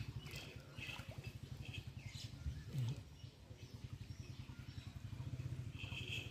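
A steady low engine note running with a rapid, even pulse, with birds chirping briefly and repeatedly over it.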